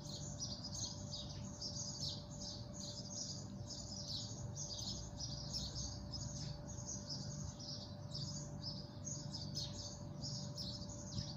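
Mushrooms and mixed vegetables sizzling in hot oil in a stainless steel frying pan: a steady, dense crackle of tiny spits and pops.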